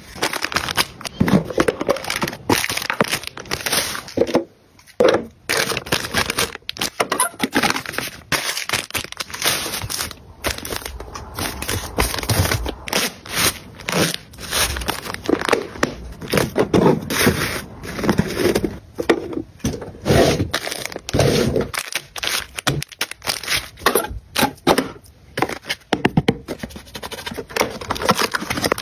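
Close-up handling of packaging: crinkling and tearing of plastic wrap and paperboard, with taps and scrapes as items are handled and set down on a table. A dense run of sharp, irregular rustles and clicks, briefly quieter about five seconds in.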